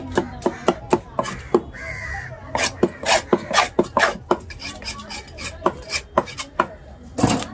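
A large fish-cutting knife chopping on a wooden stump block, in quick, uneven strokes about three to four a second, with one heavier thump near the end.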